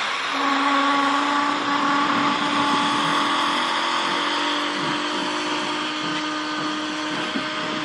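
Steam locomotive working along the line: a steady hiss of steam with a long, steady pitched tone sounding through most of it.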